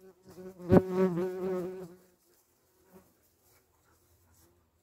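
A flying insect buzzing close by for about two seconds, its pitch wavering as it moves, with one sharp tap less than a second in.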